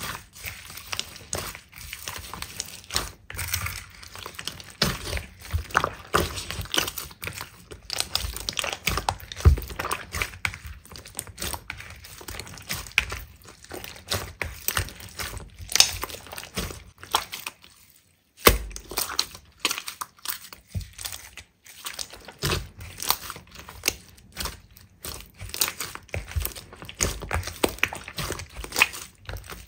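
Slime being squeezed and pressed by hand: a dense run of crackles, clicks and pops, with a brief pause about eighteen seconds in.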